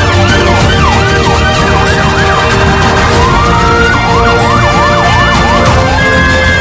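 Emergency-vehicle sirens sweeping quickly up and down, switching about four seconds in to a faster yelp of about four sweeps a second, over background music with a steady beat.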